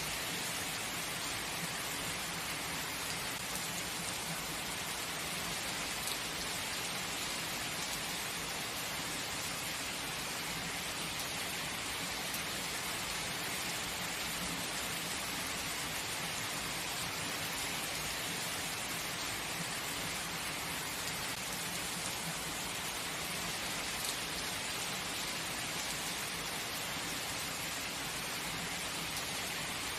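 Heavy rain falling steadily, an even hiss with no thunder standing out.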